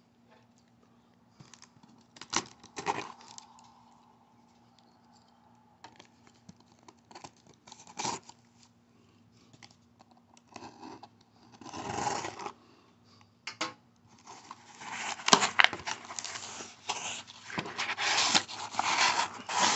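A small metal blade slitting packing tape along the seam of a corrugated cardboard box, with scattered clicks and short scrapes. Over the last five seconds the cardboard flaps scrape and rustle continuously as the box is pried open.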